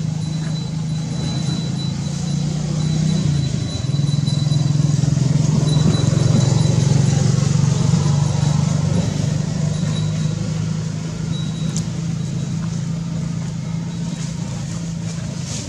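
A steady low engine hum, like a motor running at idle, with a brief dip about three and a half seconds in. A thin high tone comes and goes over it.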